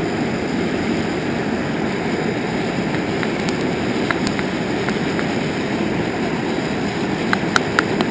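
Blowtorch burners heating a small metal-melting furnace, running with a steady, even roar. Near the end, a quick run of light, sharp clicks.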